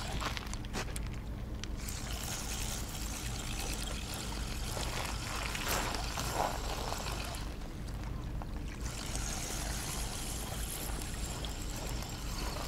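Spinning reel being cranked on a bent fishing rod, reeling in a hooked fish, with a steady whirring noise. A faint steady low hum runs underneath.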